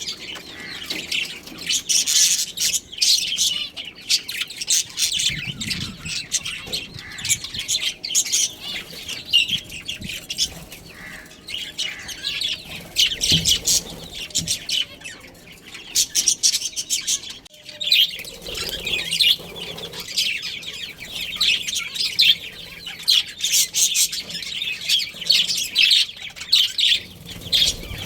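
Budgerigars chirping and chattering in a continuous stream of rapid, high calls.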